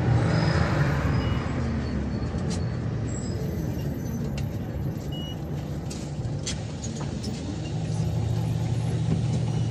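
Cabin sound inside a Scania OmniLink CK94UB city bus under way: the diesel engine's low drone with road noise and a few light rattles. It is quieter from about four to seven seconds in and louder again near the end.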